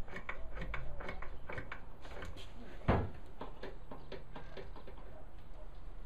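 A benchtop mortising machine and its workpiece clamp being set up by hand: a run of small clicks and light knocks, with one louder knock about three seconds in.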